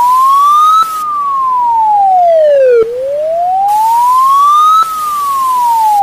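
Police car siren in a slow wail: one clear tone rising and falling, peaking about a second in and again about five seconds in, with its low point near the middle.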